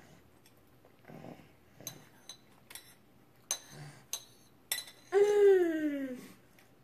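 A metal fork clicking and scraping against a plastic high-chair tray, several separate taps. Then, about five seconds in, a drawn-out vocal sound lasting just over a second that slides steadily down in pitch, the loudest thing here.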